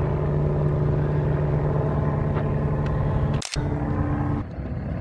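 An engine running at a steady speed, a constant drone, with a brief break about three and a half seconds in.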